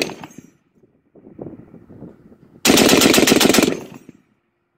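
M2 .50-calibre heavy machine gun firing a burst of rapid, evenly spaced shots lasting about a second, starting a little less than three seconds in. At the very start the echo of the previous burst dies away.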